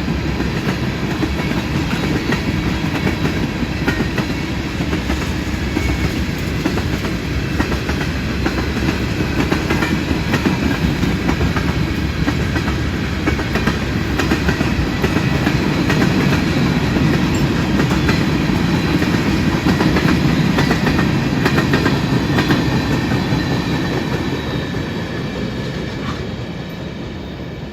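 CSX freight train's cars rolling past on the rails, wheels clacking steadily over the rail joints. The noise builds through the middle and fades near the end.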